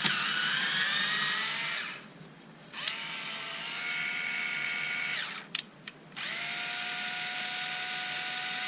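Bosch Ixo cordless screwdriver's motor and gearbox whirring in three runs of a few seconds each, with trigger clicks in the gaps. It is being run to test how long its battery lasts, the one the owner calls the dodgy battery.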